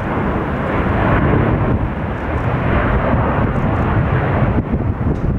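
Twin jet engines of an Airbus A330 running at takeoff thrust during the takeoff roll and liftoff: a loud, steady rumbling rush.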